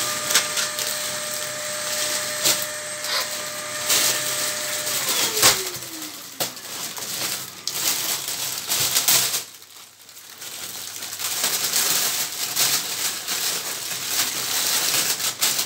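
Crinkling and rustling of plastic and paper wrapping as gift packets and a shiny foil bag are pulled open, with many quick snaps of the plastic. A faint steady tone slides downward about five seconds in.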